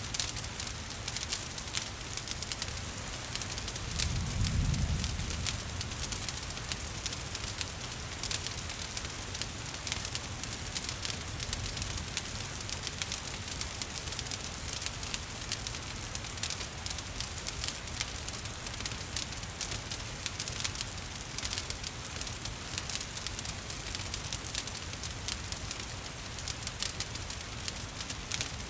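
Wood fire crackling with dense small pops over a steady hiss of rain. A brief low rumble about four seconds in.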